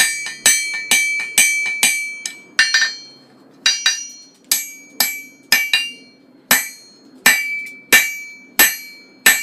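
Blacksmith's hammer striking hot O1 tool steel on an anvil, upsetting the end of the bar. About two blows a second, each with a ringing metallic ping, and a short pause about three seconds in.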